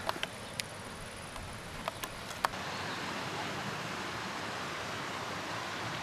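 Outdoor ambience: a handful of sharp clicks in the first two and a half seconds, then a steady, slightly louder rushing noise.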